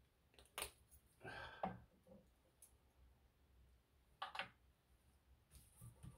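A few faint, scattered clicks and rustles of objects being handled, as a small key is fetched and picked up.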